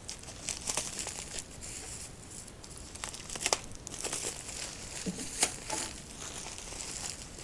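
Plastic bubble wrap crinkling as it is pulled open by hand, with scattered sharp crackles.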